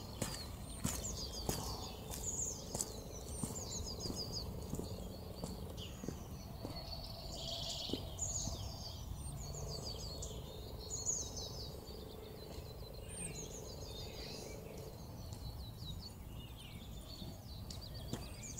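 Several small songbirds singing, with short repeated chirps and trills overlapping throughout, over a low steady outdoor rumble. A few footsteps on the road sound in the first couple of seconds.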